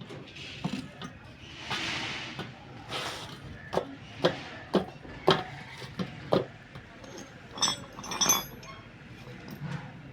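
Irregular light metal knocks and clinks, about a dozen strikes, some ringing briefly, from the metal parts of a spoked motorcycle wheel being worked on by hand. A short hiss comes about two seconds in.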